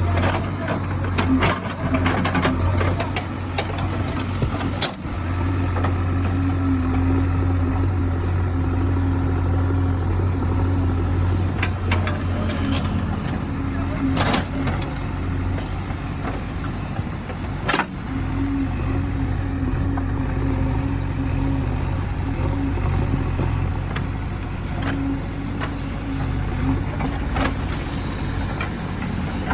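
Heavy diesel engine running steadily, with a few sharp knocks or clatters, about five, fourteen and eighteen seconds in.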